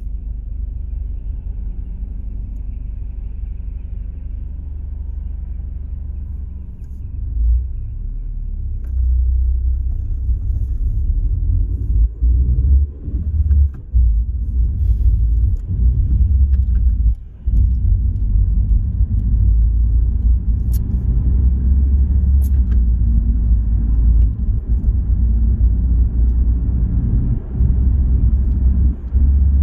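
Car driving at motorway speed: a steady low rumble of tyre, road and engine noise, getting louder about nine seconds in, with a few brief dips.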